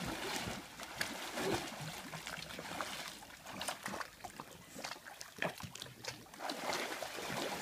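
Pool water splashing and lapping in small, irregular strokes as a dog paddles through it alongside a swimmer.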